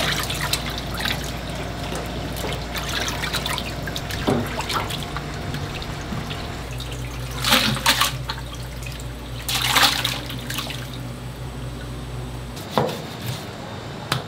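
Water running from a tap into a sink, with splashing that swells twice around the middle. A steady low hum runs underneath and stops near the end, and a few short knocks fall in between.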